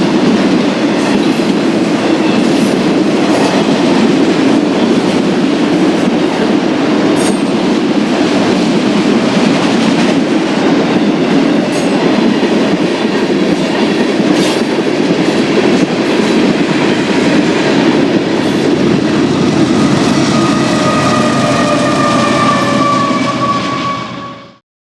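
Freight train cars rolling past: a steady rumble of wheels on rail with scattered sharp clicks. In the last few seconds thin high ringing tones, sagging slightly in pitch, sound over it, typical of wheel squeal, and the sound cuts off abruptly near the end.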